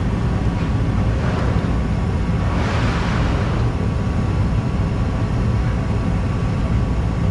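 A Modine Hotdawg gas unit heater running at start-up with a steady low drone. A brief hiss swells and fades about three seconds in.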